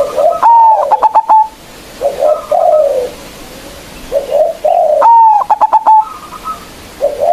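Zebra dove (perkutut) singing: two song phrases about four and a half seconds apart. Each phrase is a few low coos followed by a quick run of short, higher staccato notes.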